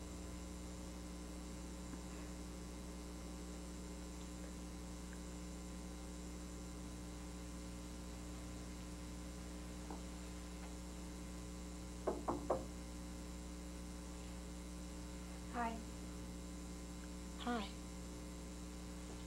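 Steady electrical mains hum on the soundtrack, with three short sounds close together about twelve seconds in and two brief falling-pitched sounds near the end.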